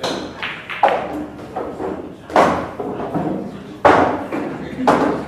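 About five sharp knocks at uneven intervals, each ringing out briefly in a large, echoing room.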